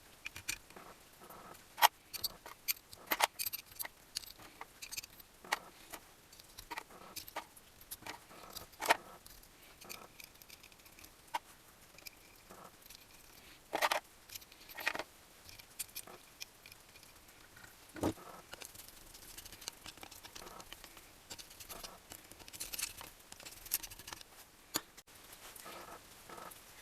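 Irregular light clicks, taps and rattles of small metal parts and hand tools being handled, with a few louder knocks.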